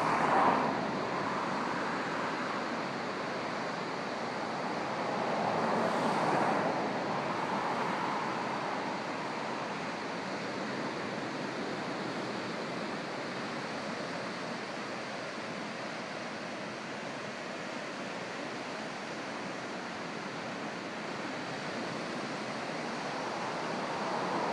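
Pacific Ocean surf breaking on a rocky beach, a continuous wash of waves that swells louder about six seconds in and again near the end.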